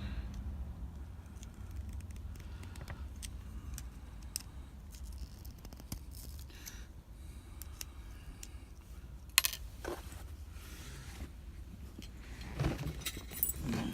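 Keys and an Abus 72/40 padlock being handled to lock it back up: faint metallic rattling and scraping, a sharp click about nine and a half seconds in and a few more clicks near the end, over a steady low hum.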